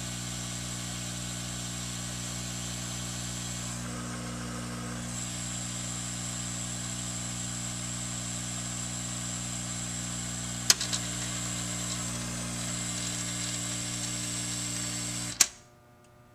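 Hot-air rework station's blower running steadily on its cool-down cycle after a solder reflow, with a hum and a high whine. A sharp click comes about eleven seconds in. Near the end, another click and the blower stops abruptly, leaving only a faint mains hum.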